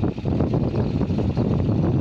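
Osanori OS13 mini excavator's engine running steadily as the machine drives and turns on its tracks.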